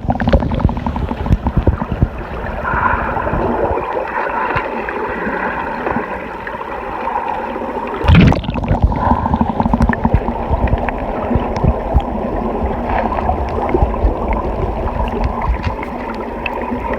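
Waterfall pool water heard muffled and gurgling, the phone's microphone in or under the water, with a dense crackling rush and a louder surge about eight seconds in.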